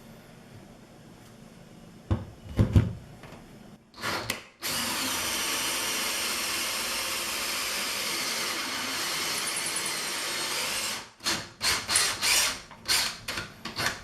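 A 20V cordless drill runs a 1-1/4-inch hole saw into a wet cultured marble countertop: a brief burst, then about six seconds of steady cutting, then a string of short stop-start trigger bursts near the end. A few sharp knocks come a couple of seconds in, before the drilling starts.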